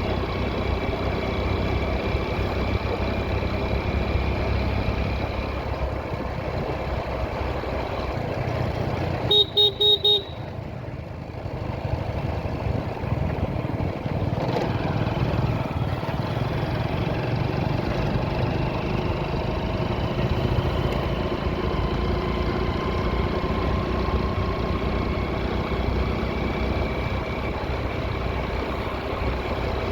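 Steady road noise of a vehicle riding through traffic: a low engine and wind rumble. About nine seconds in, a horn sounds loudly in a quick run of four short beeps.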